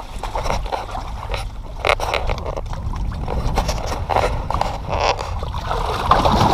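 Shallow lake water sloshing and splashing around hands and wading feet as a flathead catfish is lowered into it and released, with a few louder splashes as it swims off.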